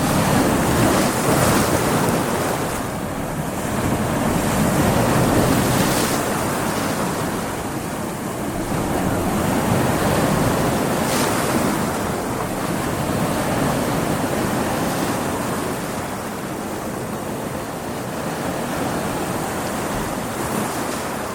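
Stormy sea: waves surging and breaking with wind, a continuous roar that swells and ebbs every few seconds.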